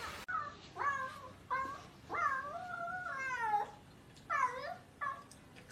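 A cat meowing repeatedly: about five meows, with one long drawn-out meow from about two seconds in.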